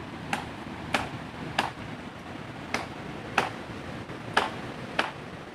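Hammer-and-chisel strokes tapping on stone while it is being dressed or repaired: sharp, crisp strikes, about seven of them at an uneven pace of one every half second to a second.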